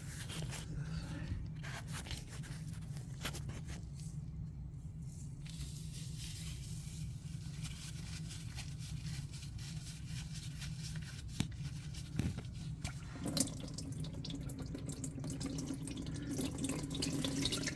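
Old engine oil draining and dripping from the open drain-plug hole of a Trailmaster Challenger 300's engine into a catch pan, with scattered small clicks over a steady low hum.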